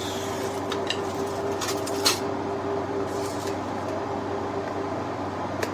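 Steady room hum with a faint held tone, broken by a few light clicks and knocks, the sharpest about two seconds in and another near the end.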